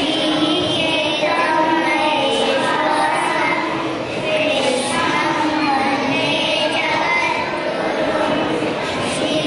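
A group of young children singing together into stage microphones, one continuous melodic line with no pauses.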